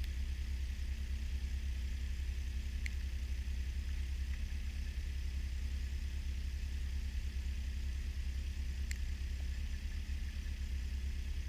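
Snowmobile engine idling steadily, a low even hum, with two faint clicks in the middle.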